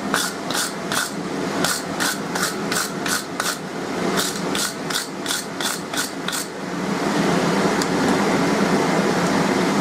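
Wire brush scrubbed back and forth over hot forged iron on the anvil, about three strokes a second with a brief pause in the middle, stopping about six and a half seconds in. A steady fan-like hum runs underneath throughout.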